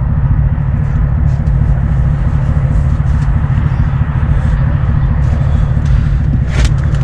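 Pickup truck engine idling steadily, a loud, even low rumble. There is a short click near the end.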